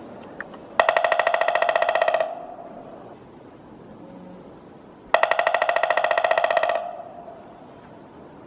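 Woodpecker drumming: two rapid rolls of beak strikes on wood, each about a second and a half long and carrying a ringing tone, the second starting about three seconds after the first ends.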